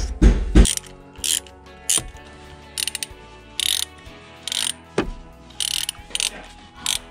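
Hand socket ratchet clicking in short bursts, about eight strokes spaced roughly a second apart, as the bolts holding a manual transmission's shifter stub are turned out. A couple of dull knocks come near the start and another about five seconds in.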